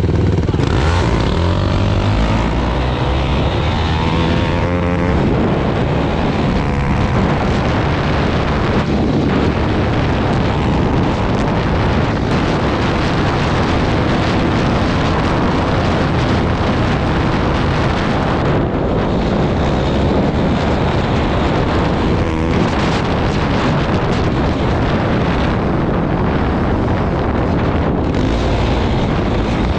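Sport quad engine running hard under throttle while riding on sand, rising in pitch over the first few seconds as it pulls away, with heavy wind rush on the helmet microphone.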